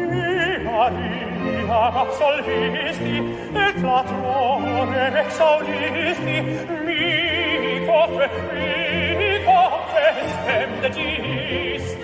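Operatic singing with a wide vibrato over orchestral accompaniment, with held low notes in the bass.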